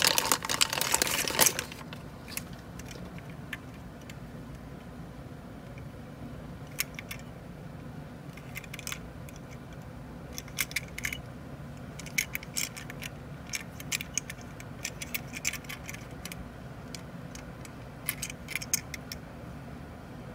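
A clear plastic bag crinkling for about the first second and a half as a small die-cast Tomica toy car is slid out of it. Then small scattered clicks and taps as the car is handled and turned over in the fingers.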